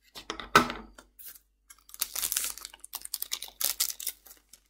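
Foil Magic: The Gathering booster-pack wrapper being handled and pulled open, with a sharp clack about half a second in and then a run of crinkling and tearing of the foil in the second half.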